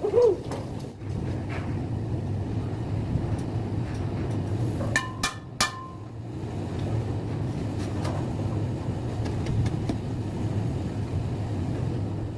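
A small engine runs steadily with a low drone. About five seconds in, three sharp metallic clanks ring out as a galvanised steel pipe fence post is knocked onto the steel bar it slots over.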